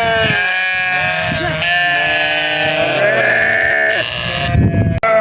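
Flock of sheep bleating, several long wavering calls overlapping one another.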